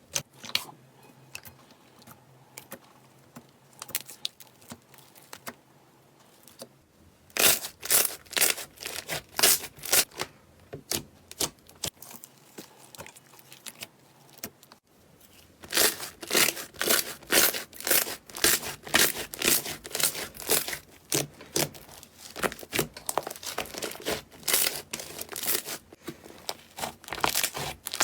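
Slime being squeezed and pressed by hand, giving rapid crackling pops. The pops are sparse and soft at first, turn dense and loud about seven seconds in, ease off, then come thick again from about sixteen seconds on.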